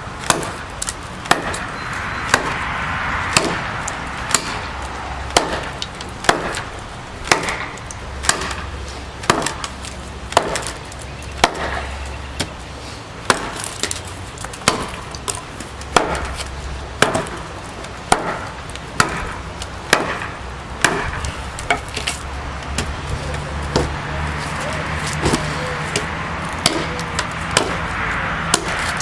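A large chopping knife striking a log over and over, in a steady rhythm of about one chop a second.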